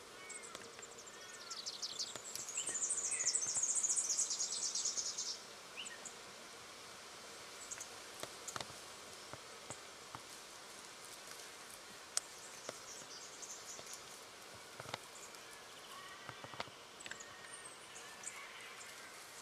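Small birds calling outdoors: a high, rapid trill rises and falls over about four seconds near the start, with short chirps around it. Scattered faint ticks and rustles follow.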